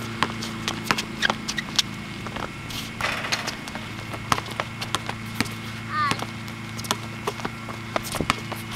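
Basketball bouncing on an outdoor court during a pickup game: irregular sharp thuds of dribbles and footfalls, with players' voices calling out over a steady low hum.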